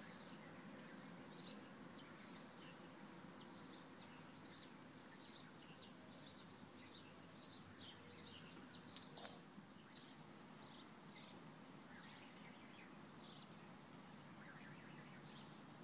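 Canada goose goslings peeping: a faint, steady string of short high peeps, about one or two a second, with one sharp click about nine seconds in.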